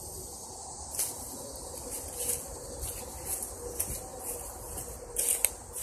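Footsteps crunching through dry leaf litter on a forest trail: scattered steps at first, then louder steps near the end.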